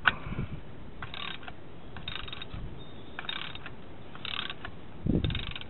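A socket ratchet clicking in five short bursts, about one a second, one burst on each back stroke while the oil drain plug on the VW 1600's sump is turned loose.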